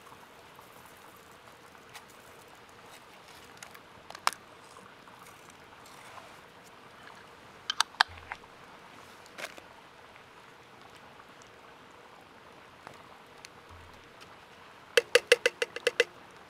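Wood campfire crackling with scattered sharp clicks as cooking gear is handled. Just after three quarters of the way through, about eight quick ringing metallic taps: a spoon knocked against the rim of a steel cooking pot.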